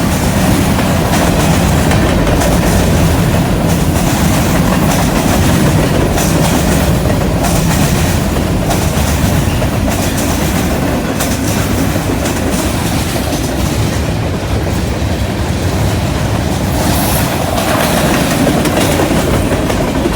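Cars of a CN train rolling past at close range, their steel wheels clacking steadily over the rails and the junction switch, with a continuous rumble.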